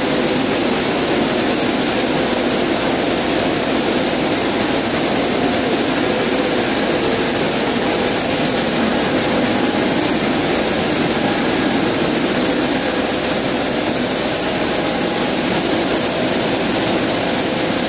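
A ⌀70 LDPE blown film extruder line running: a loud, steady machine noise with an airy rush and a faint steady hum, holding even throughout.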